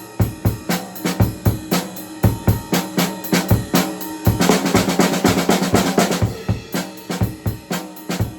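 Acoustic drum kit played live: a steady beat of kick and snare strikes, breaking into a dense fill of fast strokes from about four and a half to six seconds in, then back to the beat.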